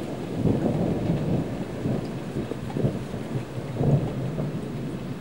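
Thunder rumbling continuously through a thunderstorm, swelling several times, with rain falling.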